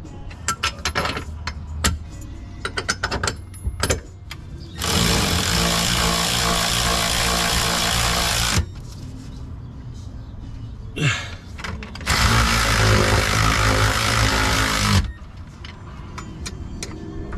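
Cordless impact wrench running in two long bursts of about four and three seconds while fastening a bolt on the rear differential and axle. A run of sharp clicks comes before the first burst.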